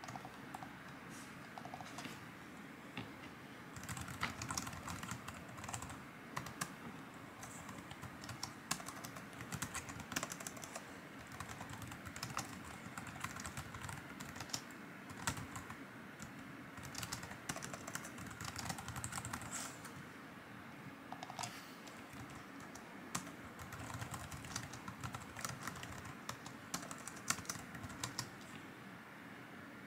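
Typing on a low-profile computer keyboard: runs of quick key clicks in bursts, with short pauses between them.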